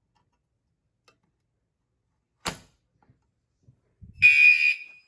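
Near silence broken by one sharp click about halfway through, then near the end a fire alarm sounder gives a loud, high, buzzy horn tone for about half a second. It is the first of a series of evenly spaced alarm blasts that come before the voice evacuation message.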